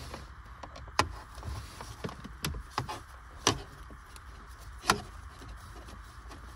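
Scattered sharp clicks and taps of a Phillips screwdriver and hands working a small screw out of plastic shifter trim, about five louder clicks at irregular intervals over a low steady hum.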